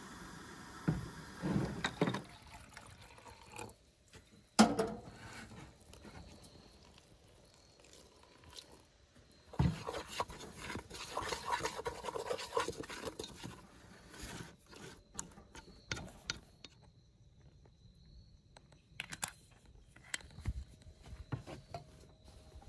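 Utensils knocking and clinking against a stainless steel pot, with one sharp knock about five seconds in, then a wooden spoon stirring and scraping through flour in the pot as bread dough is mixed. Scattered small clicks and taps follow.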